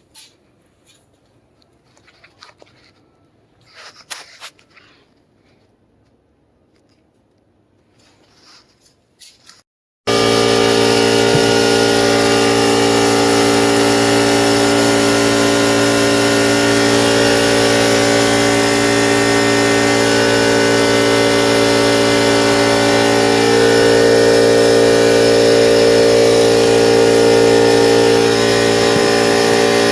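Faint handling clicks, then, from about ten seconds in, a Ford Expedition's engine running steadily at idle with an even drone.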